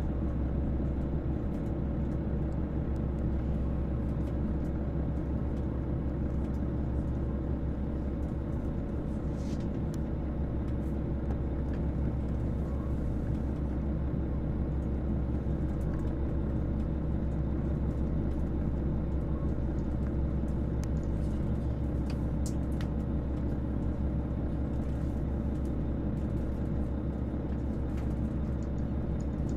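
Steady low rumble and hum of a KiHa 281 series diesel train's engines, heard from inside the passenger cabin, holding one even pitch throughout, with a few faint clicks.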